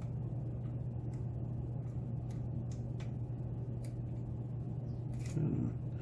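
Faint, scattered ticks of a hook pick working the pin stacks inside a Jedo lock, over a steady low hum.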